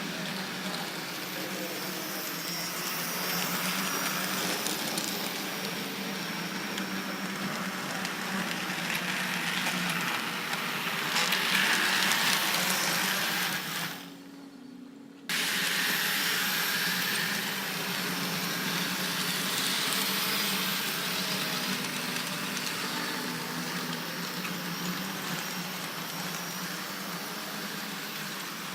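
H0-scale model trams running on the layout: the small electric motors whir steadily with a low hum and a hiss of wheels on the track. The sound drops away for about a second roughly halfway through, then comes back.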